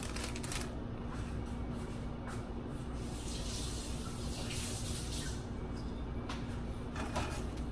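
Kitchen faucet running as scallions are rinsed under it: a steady rush of water that brightens for a few seconds in the middle.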